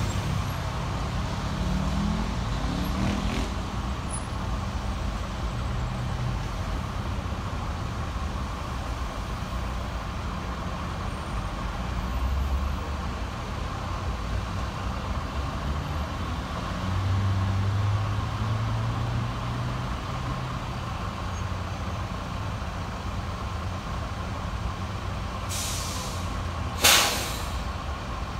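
Slow queuing traffic: bus and car engines idling and creeping forward, a steady low rumble. Near the end a bus's air brakes hiss twice, a softer hiss and then a loud, short one.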